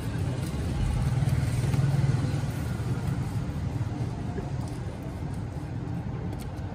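Low engine rumble of passing road traffic, swelling about two seconds in and then fading.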